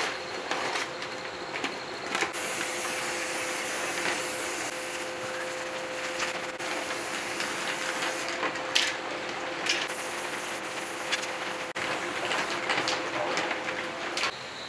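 Aerosol spray-paint can hissing steadily for most of the stretch as paint is sprayed, after a couple of seconds of paper rustling and light knocks; a few short clicks cut in, and a faint steady tone runs underneath.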